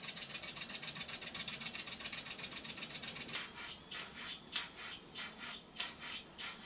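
Small brass model steam engine running fast, its exhaust giving a rapid, even train of hissing chuffs. About three seconds in, this gives way to a small brass beam engine running slowly, with quieter puffs about three a second.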